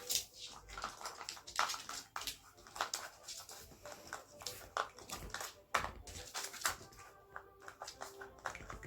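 Dog chewing a dried pig-snout chew, with irregular crunches and clicks.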